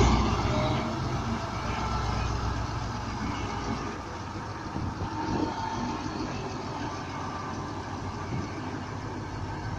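Diesel engine of a KrAZ three-axle truck running as the truck drives slowly past, loudest at the start and then a steady rumble as it moves off.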